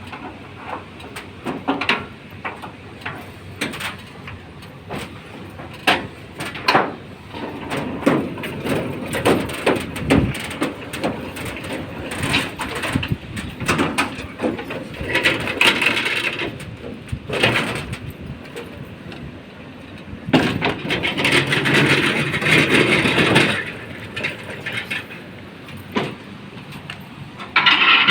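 Irregular knocks, bangs and scraping of heavy sewing machines being handled and lowered on a motorised ladder, with a few longer stretches of mechanical rattling noise.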